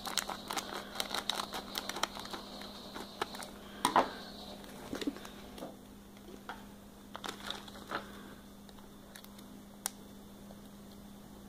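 Plastic foil blind-bag packet crinkling and crackling as it is handled and opened, with a louder rustle about four seconds in; the crinkling thins out after about eight seconds.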